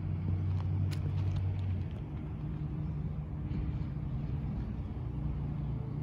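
An engine running with a steady low hum that steps up in pitch about two seconds in; a brief sharp click about a second in.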